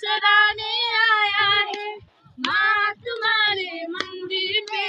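Young women singing a song together without instruments, in high, long-held notes, with a short breath about two seconds in.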